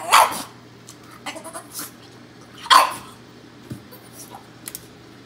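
Boston terrier making short whining, grumbling vocalizations that sound like talking, begging at the microwave for a treat. Two louder calls come at the start and about two and a half seconds in, with softer sounds between.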